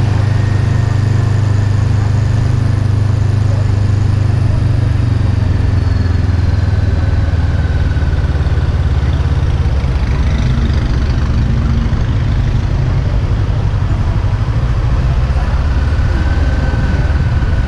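Sport motorcycle engine running at low revs at slow riding speed: a steady low drone that turns more uneven about halfway through.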